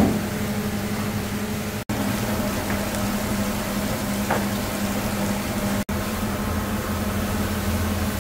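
Chopped onions sizzling as they fry in oil in a pan on a gas burner, over a steady low hum of kitchen machinery. The sound drops out for an instant twice.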